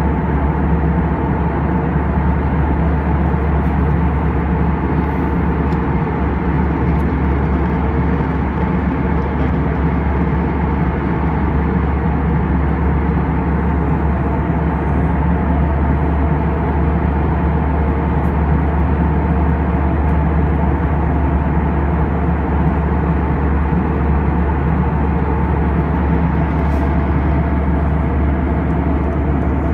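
Jet airliner cabin noise at cruise altitude: a steady, deep rumble of the turbofan engines and the air outside, unchanging throughout, with a few faint steady hums above it.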